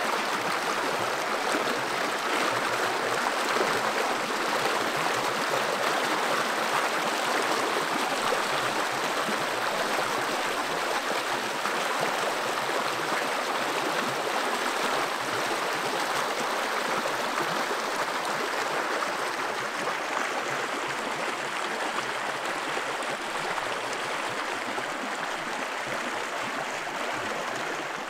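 Running water of a small stream, a steady rushing that grows slightly fainter near the end.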